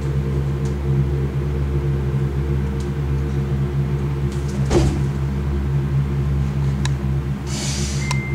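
A steady low drone of several held tones, with a sharp sweeping sound about halfway through and a short hiss near the end.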